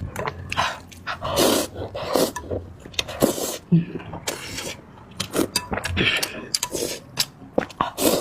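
Close-miked eating of instant noodles: several loud slurps and breaths between many sharp mouth clicks and chewing noises.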